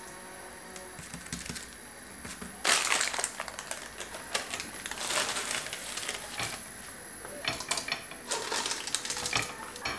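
Quiet for a couple of seconds, then irregular scraping, clicks and clatter from about two and a half seconds in: a plastic dough scraper works under a thin, topped lahmacun to lift it off its baking paper, and the lahmacun goes into a pan and is covered with a stainless steel lid.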